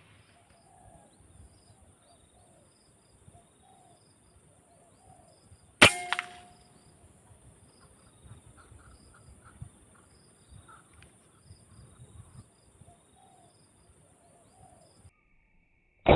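A single sharp shot from an air rifle about six seconds in, with a short ringing tail. Around it come soft, repeated low cooing calls of spotted doves and a steady high insect hiss that stops shortly before the end.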